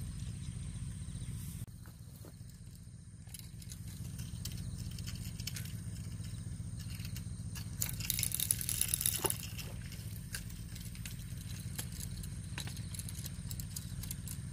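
Outdoor ambience: a steady low hum, a thin high tone that stops after about two seconds, and a brief rustling rattle about eight seconds in.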